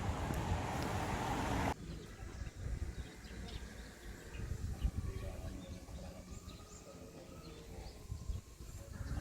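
Outdoor ambience on a mountain trail. A loud steady rush of noise cuts off abruptly about two seconds in, leaving quieter background with faint scattered bird chirps over a low rumble.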